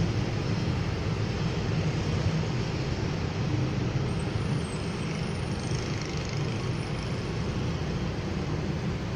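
Steady background noise with a low hum throughout, without distinct events.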